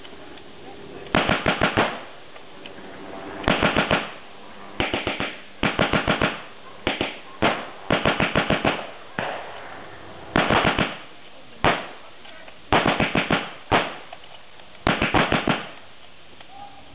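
Vickers medium machine guns firing blanks in short bursts, each under a second long at about eight to ten rounds a second, with some single shots among them; about a dozen bursts with brief pauses between.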